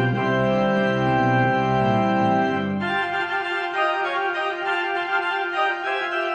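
Church organ playing: sustained full chords over a low bass, then about three seconds in the bass drops out and a lighter, higher passage with moving notes carries on.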